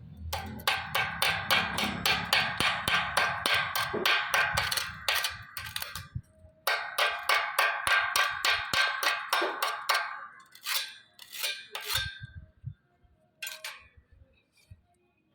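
Rapid metal-on-metal strikes with a short ring, about four or five a second, in two long runs, then a few scattered strikes near the end.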